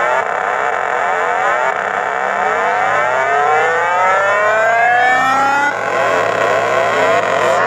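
Car audio subwoofers playing a very loud 32 Hz bass tone for a hair trick, heard as a harsh distorted buzz. Its overtones glide upward and then settle about six seconds in.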